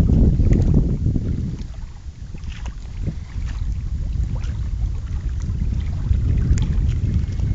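Wind buffeting the microphone in an uneven low rumble that eases off about two seconds in and then picks up again, with a few light ticks over it.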